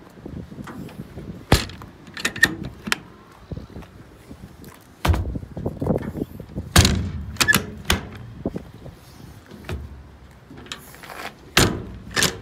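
Service-body compartment doors and their latches being worked: a string of sharp clicks and knocks at uneven intervals, the loudest about a second and a half in and again about seven seconds in.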